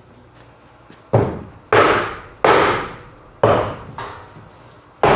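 A hammer strikes a wooden block held against a sheet of green foam board insulation, knocking it into place against the steel framing. Five slow, unevenly spaced blows, the last near the end, each ringing briefly in the metal building.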